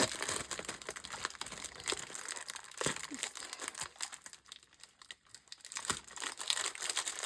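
Crinkling and rustling of a packaging bag as it is handled and worked open, in irregular crackles that thin out about halfway through and pick up again near the end.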